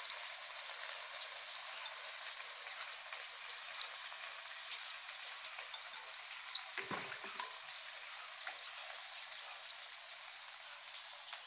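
Greens frying in a wok over a wood fire: a steady high sizzle dotted with small pops and crackles.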